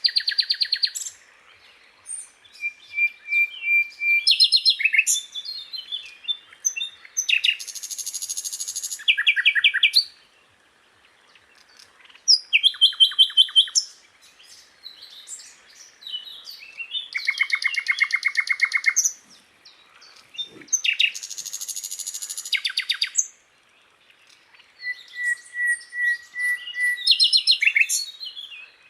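Sikatan londo flycatcher singing: a long run of varied phrases of fast rattling trills and buzzy notes, with a few short level whistles between them and brief pauses.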